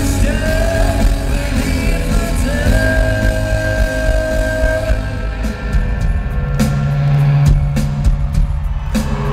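Rock band playing live in an arena, heard from the crowd: distorted electric guitars, bass and drums with long held guitar notes. About five seconds in, the sound thins out to a loud held low bass note with scattered drum hits.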